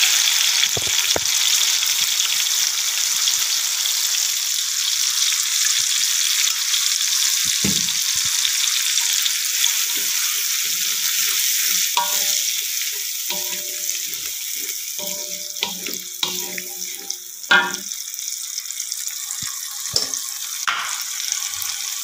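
Blended chili paste sizzling as it is poured into hot oil with frying sliced onions in a wok: a loud hiss at first that settles to a quieter frying sizzle, stirred with a wooden spatula, with a sharp knock a little past halfway.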